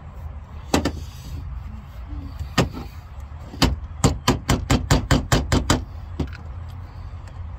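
Sharp metallic clicks of a hand tool working old nails and staples out of a wooden drawer front. There are a couple of single snaps, then a quick run of about ten clicks at roughly five a second, then one more.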